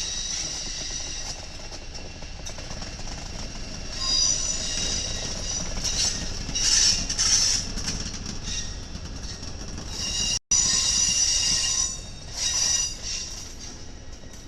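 Train rolling past on the rails, its wheels squealing in high steady tones that swell and fade over the rumble of the cars. The sound cuts out for a split second about ten seconds in.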